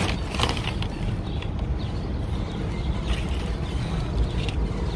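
Wind buffeting the microphone in a steady low rumble, with a few short crinkles of paper and foil being handled.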